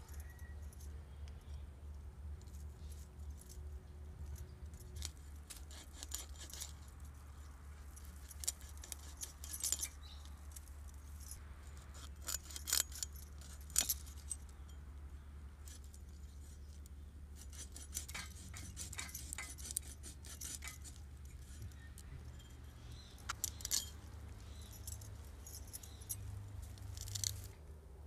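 Scales being scraped off a Mrigal fish on an upright boti blade: bursts of quick, crisp, gritty scraping strokes, with a steady faint low hum underneath.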